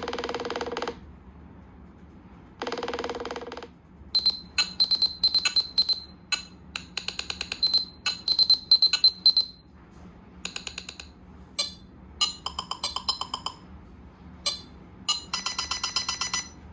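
Nothing Phone (1) playing its built-in notification and ringtone sounds: two short buzzy electronic tones, then a run of rapid glitchy clicks and high beeps in shifting rhythmic patterns, ending with a fast pulsing tone.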